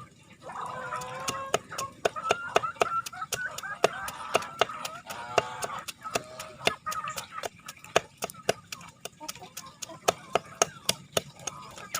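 Chickens calling in short wavering clucks, over a rapid, uneven run of sharp clicks or taps, several a second.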